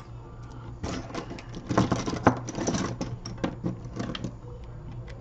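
Rapid small clicks and scrapes of repair tools working on an iPhone 6/6s, starting about a second in and easing off after about three seconds.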